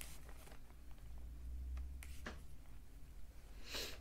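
Quiet room with a steady low hum, a few faint clicks, and a brief rustle near the end.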